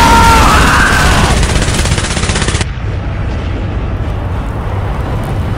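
Nuclear explosion sound effect: a loud blast of noise that cuts off sharply about two and a half seconds in, leaving a lower steady rumble.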